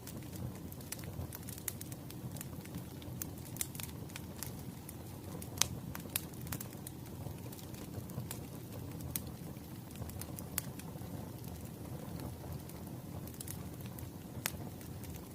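Split firewood burning: a steady low rumble of flames with irregular sharp crackles and snaps, a few louder pops among them.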